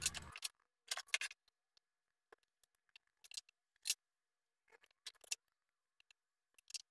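One-handed bar clamps clicking and rattling as they are set and ratcheted tight on a glued-up wooden frame, in a few short bursts with pauses between.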